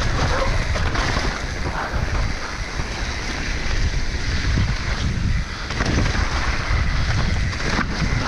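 Wind rushing over the microphone and tyre noise from a mountain bike descending a clay enduro trail, with a few scattered knocks from the bike.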